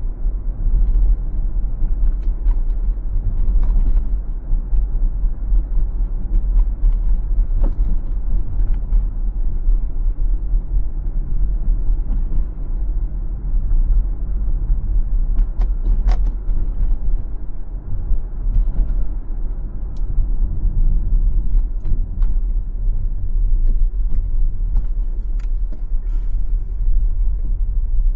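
Car driving on a city street: a steady low rumble of road and tyre noise, with scattered light clicks and creaks.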